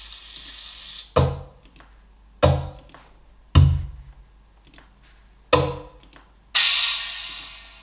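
Percussion samples from a drum pack played back one at a time: a hissing noise effect fading out, then four separate drum hits, each a sharp knock with a low thump and a short decay, then a bright noisy hit near the end that dies away slowly.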